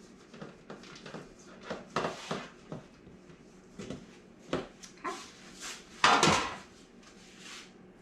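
Knocks and scrapes of utensils and a baking pan being handled while the pan is buttered, with a louder clatter about six seconds in.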